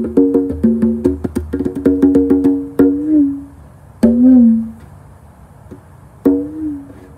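A pair of conga drums played by hand: a quick run of ringing strokes for about the first three seconds, then a few single strokes spaced well apart, their ringing tones sliding down in pitch.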